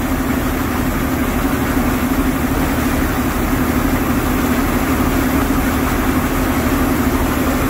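JCB Fastrac tractor's diesel engine idling steadily.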